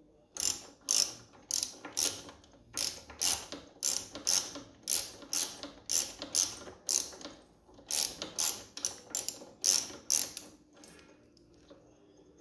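Small ratchet wrench clicking in quick repeated strokes, about two a second, as a bolt is undone, stopping about eleven seconds in.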